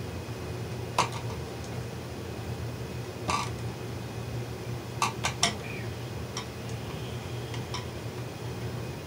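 Wire strippers and pliers clicking as insulation is stripped from electrical wires: scattered sharp metal clicks, three in quick succession about five seconds in, over the steady hum of a fan.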